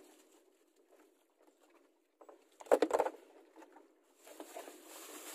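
A quick cluster of sharp knocks and taps about halfway through, followed by a steady hiss.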